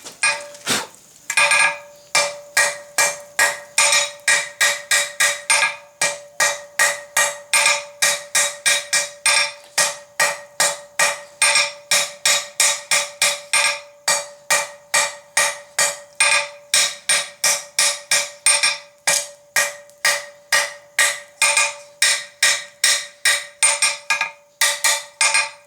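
Blacksmith's hammer striking hot flat bar on an anvil in a steady rhythm, about two to three blows a second with a few short pauses, the anvil ringing a steady tone between blows: the bar is being hammered out to a taper.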